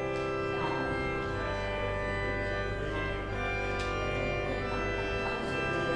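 Organ playing slow, held chords that shift to new chords a few times, typical of a church service prelude.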